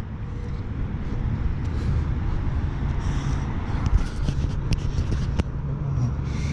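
Street traffic: car engines and tyres giving a steady low rumble, with a few sharp clicks about four to five and a half seconds in.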